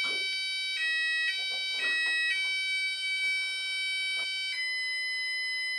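Texecom Premier Elite alarm system sounding its continuous electronic exit tone while it arms in part set. The pitch switches back and forth twice about one to two seconds in, then holds steady and shifts to a slightly lower note later on.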